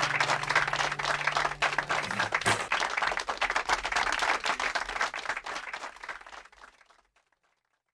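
Audience applauding at the end of a song, over the band's last held chord, which stops with a final strike about two and a half seconds in. The clapping then dies away and is gone about seven seconds in.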